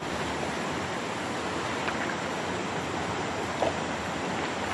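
Steady rush of a shallow river flowing over stones, with a couple of faint brief clicks.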